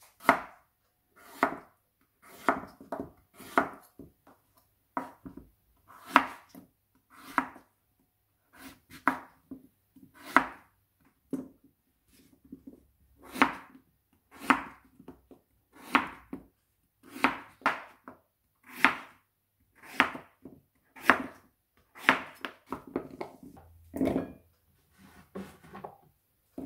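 Kitchen knife chopping peeled green papaya into chunks on a bamboo cutting board: sharp, separate knocks of the blade through the fruit onto the board, about one a second. A duller, heavier knock comes near the end.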